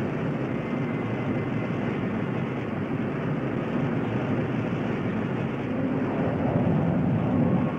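Rocket sled's rocket motors firing as it runs down the track carrying an F-111 escape module: a steady rushing rumble, a little louder near the end.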